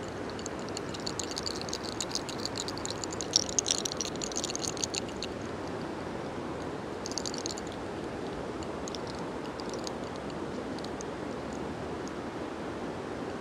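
Fingers rolling, pulling and rubbing locks of hair close to the microphone: a dense scratchy crackle for the first few seconds, a short burst again about seven seconds in, then a few faint ticks, over a steady outdoor hiss. The pulled locks give no sharp crack, which the healer takes to mean the head holds no 'soles' (sun heat).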